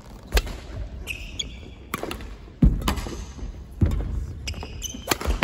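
Badminton rally on a wooden hall floor: sharp cracks of rackets striking the shuttlecock, shoes squeaking, and heavy thuds of players landing and lunging.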